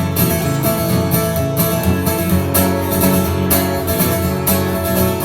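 Live band playing the instrumental intro of a song, led by guitar, with a steady beat.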